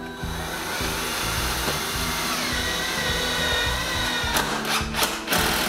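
Power drill driving screws to fasten a kitchen base cabinet: one run of about four seconds with a whine that rises slightly, then several short trigger bursts near the end. Background music plays under it.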